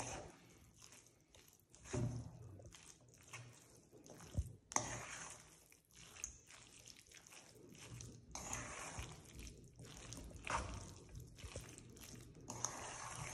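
A spoon stirring cream cheese into shredded chicken and sweet corn filling in a stainless steel bowl: faint, irregular stirring and scraping strokes, with a sharp knock about four seconds in.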